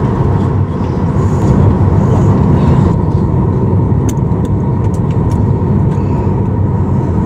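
Steady low rumble of jet aircraft noise heard from inside an airliner cabin, with a constant whine running through it.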